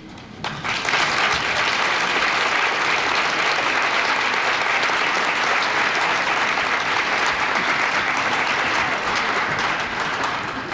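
Audience applauding, starting about half a second in and beginning to fade near the end.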